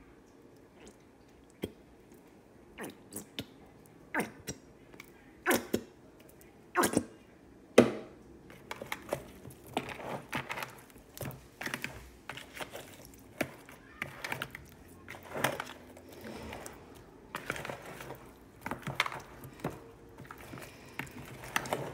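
Raw chicken pieces being mixed by hand with sauce in a plastic bowl, squishing and smacking wetly. A few separate smacks about a second apart come first, then from about eight seconds in a steady run of quick squelches.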